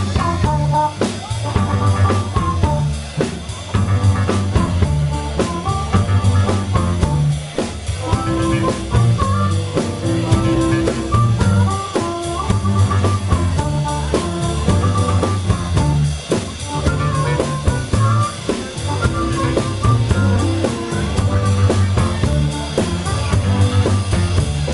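Live blues band playing: a harmonica played into a hand-held microphone leads the tune over electric piano, electric bass and a drum kit keeping a steady beat, with a bass line that repeats.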